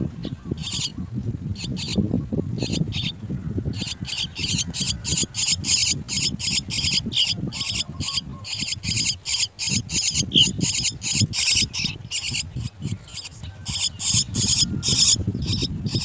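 Chestnut-tailed starlings giving raspy calls in quick series, sparse at first and then several a second from about four seconds in, over a low rumble.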